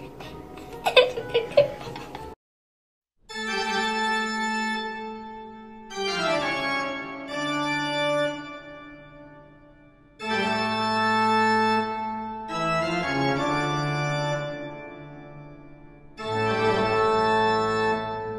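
A few sharp knocks about a second in, then a moment of silence, then slow music of held chords in phrases two to three seconds long that fade out between them.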